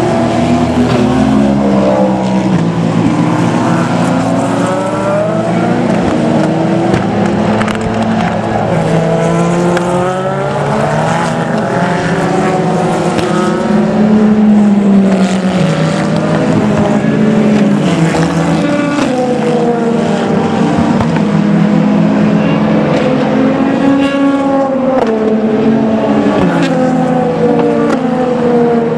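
Endurance racing cars, Le Mans Hypercars and GT cars, passing through a corner one after another. Their engine notes overlap, falling as they slow and rising again as they accelerate away. The sound is loud and continuous.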